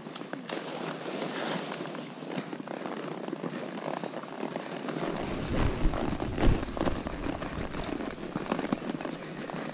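Horses' hooves clopping irregularly on a rocky trail at a walk. About halfway through, low thumps and a rumble come in.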